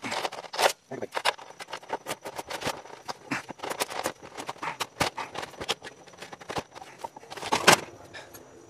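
Rain tapping on an umbrella overhead: dense, irregular sharp taps, with a louder knock and rustle about seven and a half seconds in.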